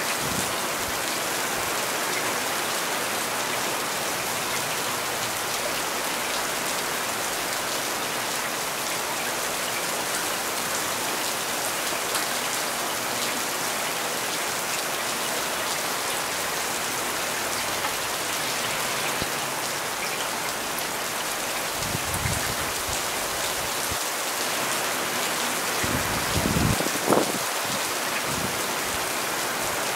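Heavy rain falling steadily, a dense even hiss of drops on surfaces. A couple of brief low thumps come about three quarters of the way through and again near the end.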